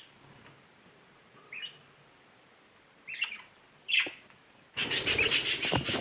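Budgerigar giving a few short, high chirps, then, about five seconds in, a loud burst of rapid wing-fluttering and splashing as it bathes.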